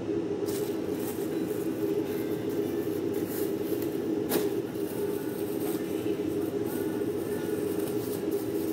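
A clear plastic bag crinkling and rustling as it is handled, with scattered sharp crackles, the strongest about four seconds in, over a steady low drone.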